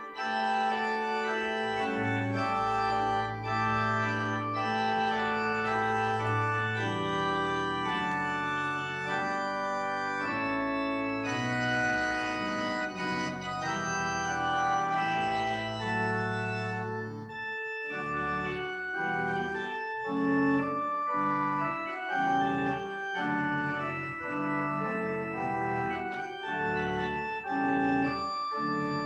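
Organ playing a solo piece: long held chords over a sustained bass, changing to shorter, detached chords a little past the middle.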